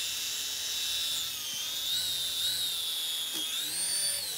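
Braha iFly flying toy's twin counter-rotating propellers whirring with a high whine as it flies free. The pitch wavers up and down and rises briefly near the end.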